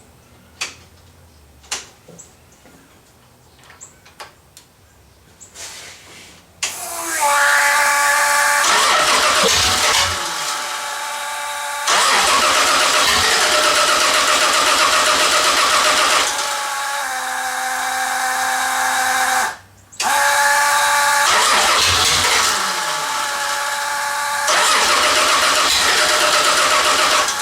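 Sand rail's Chevy 3.1L V6 being started and run after a throttle position sensor replacement: a few faint clicks, then the engine cranks and runs loud in several long surges with quieter stretches between, briefly cutting out once. It is still not running right after the sensor swap.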